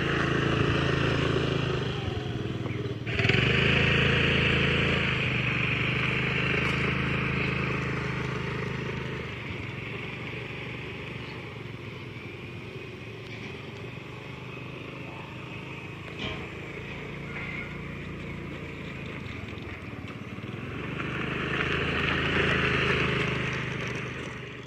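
Small petrol scooter engine running steadily while the scooter is ridden slowly. It jumps suddenly in level about three seconds in, fades as the scooter moves off, and grows louder again near the end as it comes back close.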